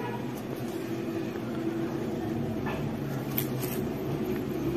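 Steady low machine hum, with a few light clicks and taps about three seconds in as small phone parts are handled on a silicone mat.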